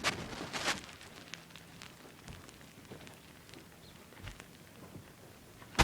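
Faint scattered clicks and rustles of objects being handled, with a soft knock about four seconds in and a loud sharp clunk at the very end.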